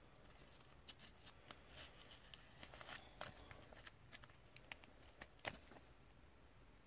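Faint scattered clicks and light rustling of a thick trading card being handled in a clear plastic holder, the sharpest click about five and a half seconds in.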